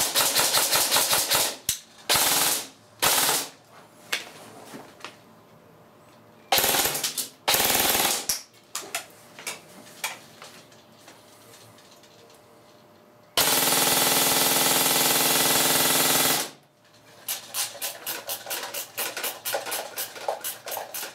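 G&P M16A3 airsoft electric gun, freshly rebuilt with new gears, bearings and piston and running on an 8.4 volt battery, test-fired: several short full-auto bursts, a few single shots, a continuous burst of about three seconds about two-thirds of the way in, then a run of quick separate shots near the end.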